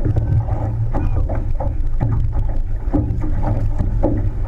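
Wind rumbling on the microphone over water rushing and splashing along the hull of a six-person outrigger canoe, with repeated splashes from the crew's paddle strokes.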